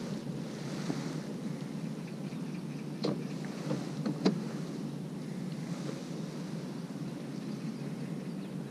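Steady low outdoor background noise, with two sharp clicks or knocks about three and four seconds in.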